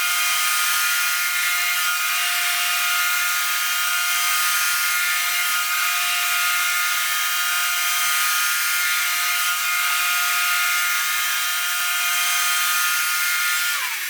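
Sawmill's circular saw blade running with a steady high whine, thin and without bass; near the end its pitch drops briefly before it cuts off.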